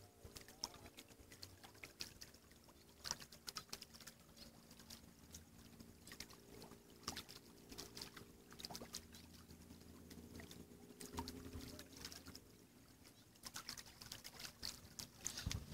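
A distant engine hums steadily at a low level, with scattered faint clicks and taps over it.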